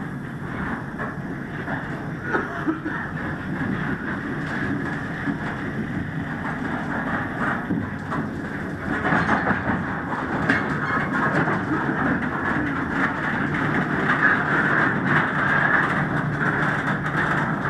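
Coal hopper cars rolling slowly along the track: a steady noise of steel wheels on rail, with a few occasional knocks.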